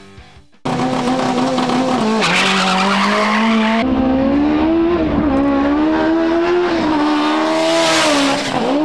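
Honda Civic EK4 drag car's four-cylinder engine at full throttle on a drag-strip launch, starting abruptly under a second in, held at high revs with the tyres squealing, then pulling hard with its pitch climbing near the end.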